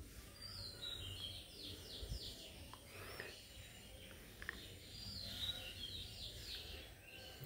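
Faint birds chirping in two runs of quick, repeated notes, with a few light clicks of small metal parts being handled.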